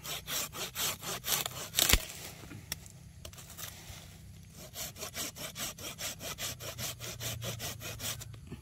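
Hand pruning saw cutting through a green durian branch with quick, even strokes: the top cut made from above after an undercut. About two seconds in a sharp crack sounds as the branch breaks away, and after a short pause the sawing starts again close to the trunk.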